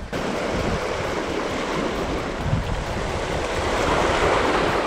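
Ocean surf washing in over boulders and cobbles on a rocky shore, swelling louder about four seconds in, with wind buffeting the microphone.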